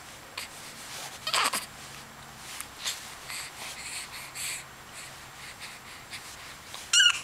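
A baby's short, high-pitched squeals: one about a second and a half in, a few faint brief ones in the middle, and a louder wavering squeal near the end.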